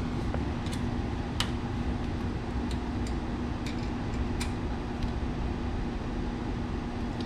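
Scattered light clicks of hand tools working the rear diffuser's mounting bolts and nuts, about one a second at irregular spacing, the sharpest about a second and a half in. They sit over a steady background hum with a constant low tone.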